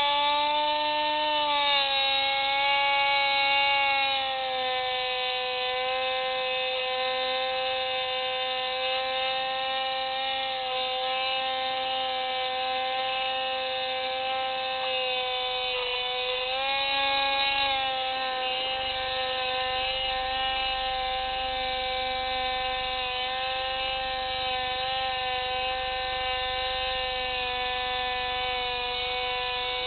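Steady electric motor and propeller whine of an FPV model aircraft, heard through its onboard camera. The pitch shifts with the throttle: it dips slightly about two seconds in, drops again about halfway, then rises back to a steady drone.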